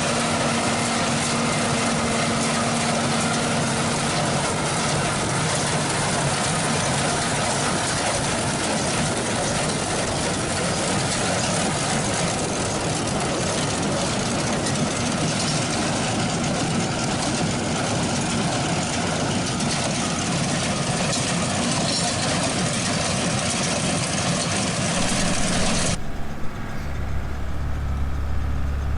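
Heavy farm machinery running steadily with a dense, even mechanical noise. Near the end this changes abruptly to a deeper, lower engine hum.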